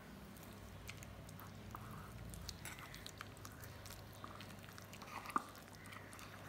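Metal spoon stirring thick rice-flour and milk batter in a bowl: faint wet squelching with light scrapes and clicks of the spoon against the bowl, one a little louder about five seconds in.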